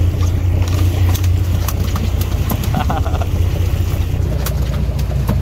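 Boat engine running steadily with a low drone, with scattered clicks and knocks over it.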